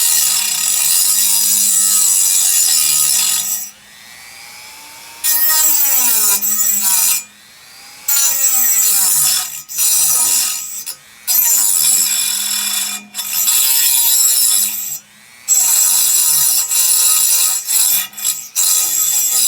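High-speed rotary tool fitted with a diamond cutting wheel, cutting: a loud, high-pitched whine whose pitch sags as the wheel loads up in the cut, stopping and starting again several times.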